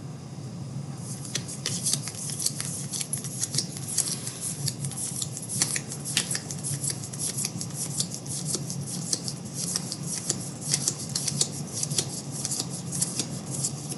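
Baseball trading cards being handled and flipped through, a dense run of quick clicks and rustles that starts about a second in, over a steady low hum.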